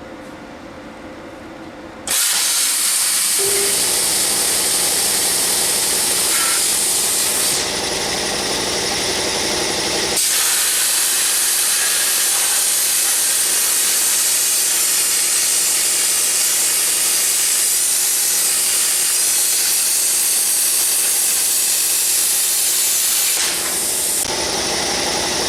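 Plasma cutter cutting metal: a loud, steady hiss of the air jet and arc that starts suddenly about two seconds in, its tone shifting a few times as the cut goes on.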